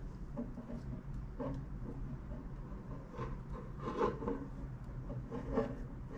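Soft rubbing and rustling of a braided cord being worked by hand into an overhand knot around a metal hook, with a few short scrapes, the most around four seconds in. A low steady hum sits underneath.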